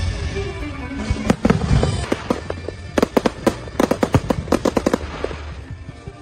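Fireworks going off in a rapid volley of sharp bangs, starting about a second in, packed densely in the middle and thinning near the end, over a steady low rumble.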